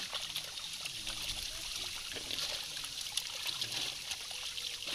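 Many netted fish thrashing in shallow water, making a continuous splashing with many small quick splashes.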